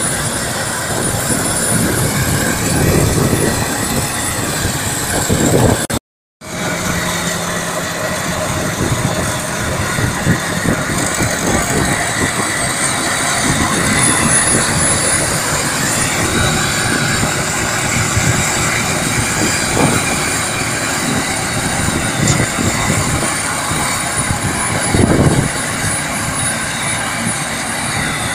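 SK-5 Niva combine harvester at work, its engine, threshing machinery and straw chopper running steadily with a thin high whine. The sound drops out for a moment about six seconds in, then carries on the same.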